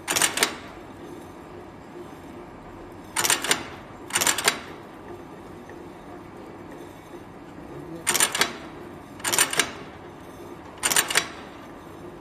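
Electric riveting machine setting rivets along the seam of a rolled perforated metal sheet: six short bursts of rapid clattering hammer strokes, each about half a second long, spaced a second to four seconds apart.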